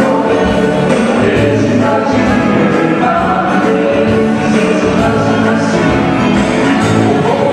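Live music from a duo: electric guitar with a woman singing into a microphone.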